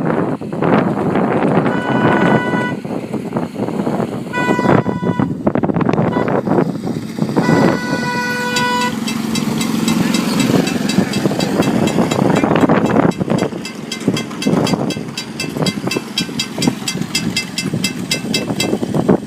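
Ride-on park train's horn sounding three blasts, two short and a longer third, over the rumble of the train running past; then a fast, even high ticking as it rolls on.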